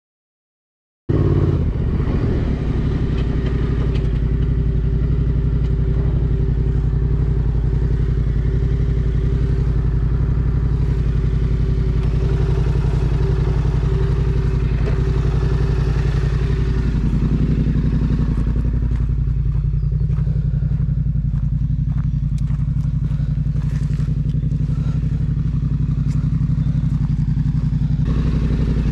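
Yamaha Ténéré 700's 689 cc parallel-twin engine running steadily at low revs while riding. It starts about a second in, after silence. Its pitch rises a little about two-thirds of the way through, and scattered clicks come near the end.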